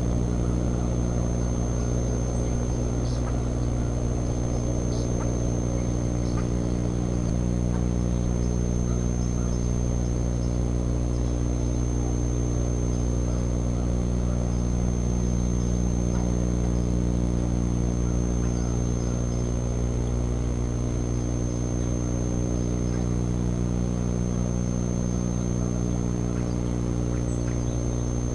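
A steady low hum made of several stacked tones, with a thin high-pitched whine above it, unchanging throughout; a few faint short high ticks sound now and then.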